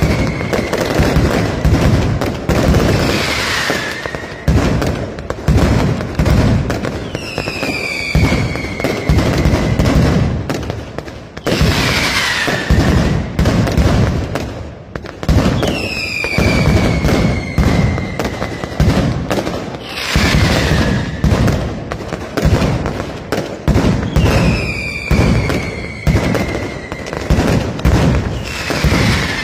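Mascletà firework display: dense, continuous firecracker bangs and crackling, with whistles that fall in pitch, recurring about every four seconds.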